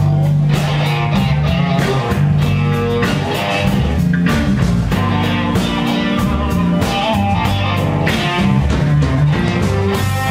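Live blues band playing an instrumental passage with no vocals: electric guitars over electric bass and a drum kit keeping a steady beat.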